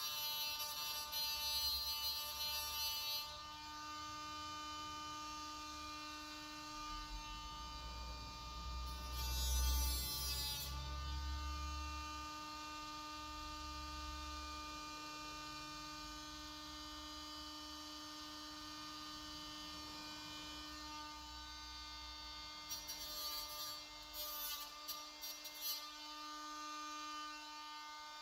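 Hot stapler plastic repair gun humming steadily as it heats staples pressed into the plastic grille frame. The hum breaks off for a moment about ten seconds in. A few short spells of faint crackling come near the start, around ten seconds and near the end.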